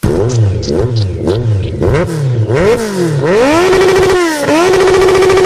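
Large-displacement motorcycle engine revved hard: a quick series of short throttle blips, then longer revs up to the rev limiter, where the pitch holds flat at the top, drops once and climbs back to the limiter.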